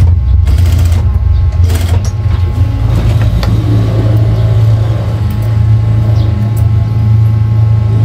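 Loud, steady low motor hum that starts abruptly and drops away near the end.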